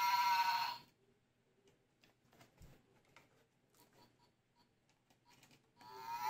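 A toy's small speaker sounding a short pitched electronic tone as its circuit is wired up, twice: under a second at the start, then again near the end. Faint clicks of wires and parts being handled in between.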